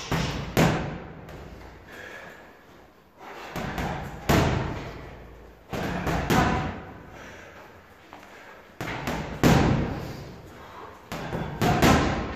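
Boxing gloves striking a hanging heavy bag in quick combinations of several punches. There are five flurries, one about every three seconds, with short pauses between them.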